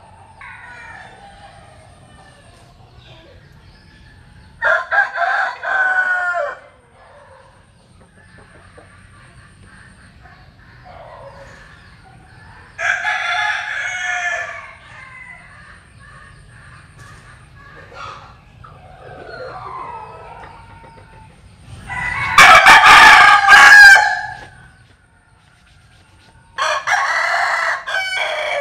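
Asil-type game rooster crowing four times, each crow about two seconds long. The third crow, about two-thirds of the way through, is the loudest.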